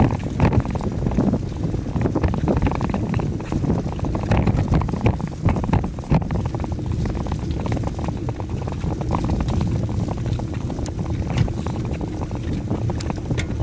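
Wind buffeting the microphone of a camera riding on a moving bicycle: a steady low rumble, with frequent small knocks and rattles from the ride over the pavement.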